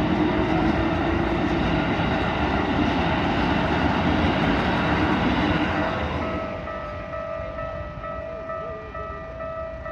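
A train passes over a railway level crossing, and its loud running noise fades about six seconds in. This leaves the crossing's electronic warning bell ringing in a steady, repeating two-tone pattern.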